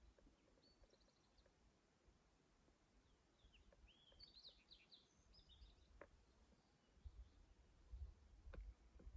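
Near silence, with faint bird chirps about a second in and again in a short run of calls a few seconds later, over a steady faint high hiss and a few faint clicks near the end.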